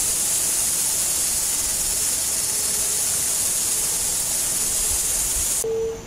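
A steady high hiss with no distinct calls in it, cutting off abruptly near the end.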